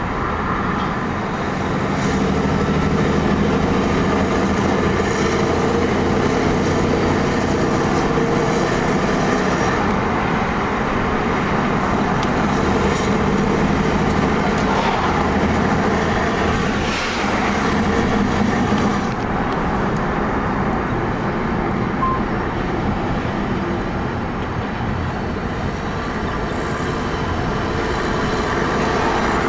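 Heavy truck engine running steadily under way, with road and traffic noise and faint passing whines.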